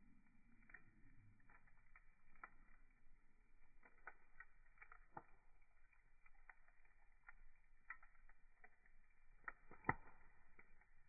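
Wood fire crackling faintly, with irregular small pops and one sharper, louder pop about ten seconds in.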